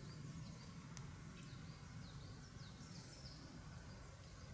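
Faint birdsong: a small bird repeating short, high, downward-sliding chirps over a steady low rumble.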